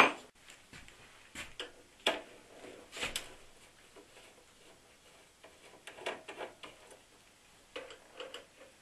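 Irregular light clicks and scrapes of a screwdriver working out the screws on the sheet-metal top panel of a solar inverter.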